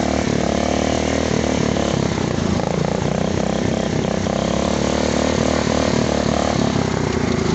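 Small engine of a rat-rod riding lawn mower running steadily under load as it tows a stuck quad.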